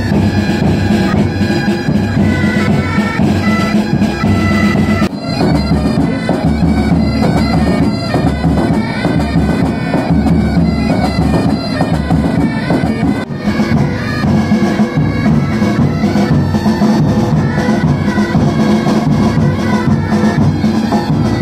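Pipe band playing: bagpipes sounding a tune over their steady drone, with bass and side drums. The music breaks off and picks up again abruptly twice, about five seconds in and again after about thirteen seconds.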